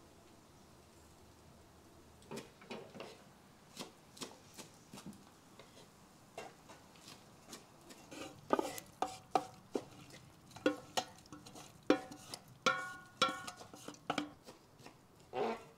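A few soft knife knocks on a wooden board, then a steel pot clanking and ringing against a metal colander as fried onions are scraped out of it with a wooden spoon: a quick run of sharp metallic clinks over several seconds.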